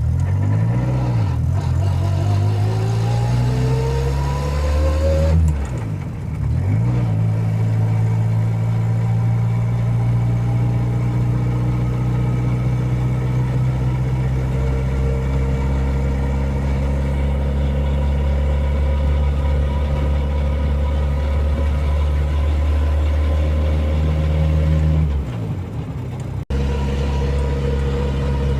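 Turbocharged VW Gol's engine under way. The revs climb steadily for about four seconds, dip briefly, then hold steady for most of the rest. Near the end they drop, with a momentary break in the sound.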